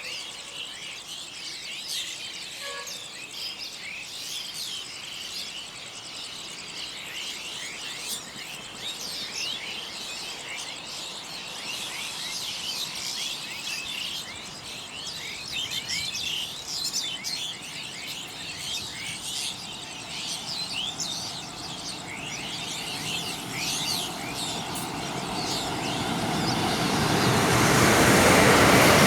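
Many small birds chirping and twittering over a steady outdoor background. In the last few seconds the rushing noise of an approaching train grows loud.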